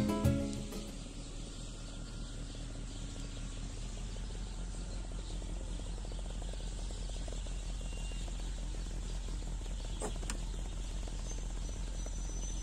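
Steady outdoor background noise with insects chirring, as guitar music dies away at the start. A single sharp click comes about ten seconds in.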